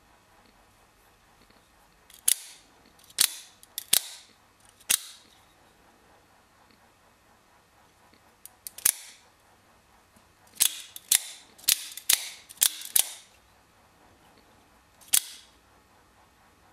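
Lightning OTF automatic knife firing its blade out the front and snapping it back in with the thumb slider: a dozen or so sharp metallic snaps, in quick clusters with pauses between.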